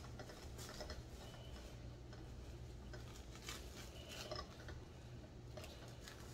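Faint scattered clicks and light taps from food being handled and set in place, over a steady low hum.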